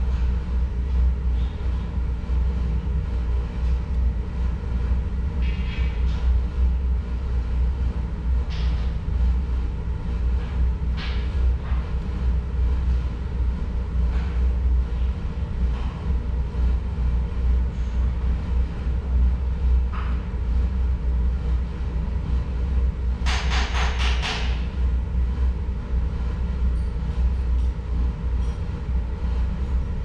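STOTEK electric pre-heater furnace running with a steady low rumble while it holds near its set temperature. A short hissing rattle comes a little over 23 seconds in, with a few fainter ticks earlier.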